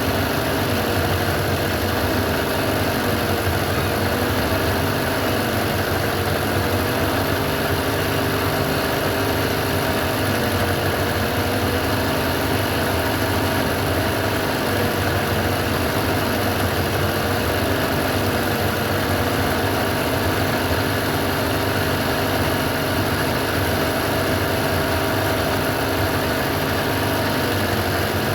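Sewing machine running steadily and continuously at an even speed while stitching embroidery.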